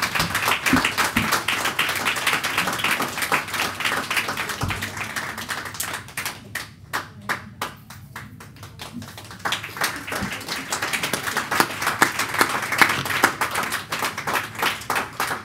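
Audience clapping, many sharp hand claps at once. It thins out for a few seconds in the middle and then builds again.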